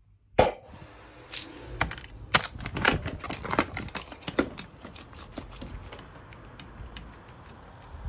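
A single cough about half a second in, then a herring gull eating: rapid irregular clicks and clacks of its bill on the food, thinning out toward the end.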